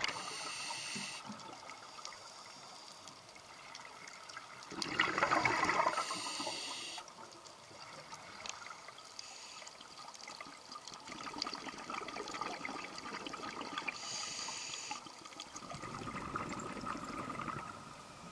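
Scuba diver breathing through a regulator underwater: a short hiss on each inhalation and a louder rush of bubbles on each exhalation, repeating every few seconds over a faint steady tone.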